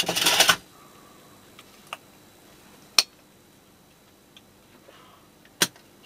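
A few sharp clicks and taps of hand tools being handled on a workbench, the loudest about three seconds in and another just before the end, with a brief rustle at the start.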